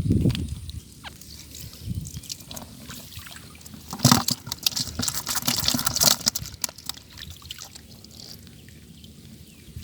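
Water splashing and pouring, with a dense burst of splashing from about four seconds in that lasts around two seconds, between softer low sloshes.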